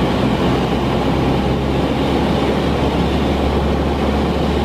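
Cessna light aircraft's piston engine and propeller droning steadily, heard from inside the cabin.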